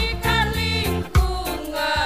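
A women's choir singing a march together, carried by an accompaniment with a steady beat of low thumps.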